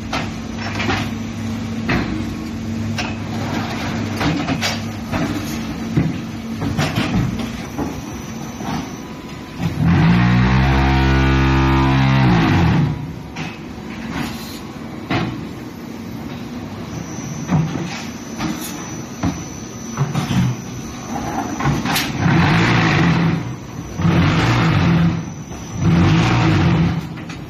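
TPM10000G concrete block machine running through its production cycle, with clanks and knocks of moving pallets and parts. About ten seconds in, a loud low drone lasts some two seconds as the pitch rises and falls, typical of the vibration table's motors spinning up and down to compact a batch. Several shorter loud bursts come near the end.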